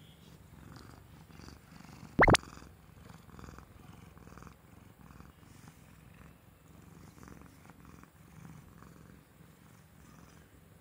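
A black cat purring steadily while being petted. About two seconds in there is one brief, loud, sharp sound.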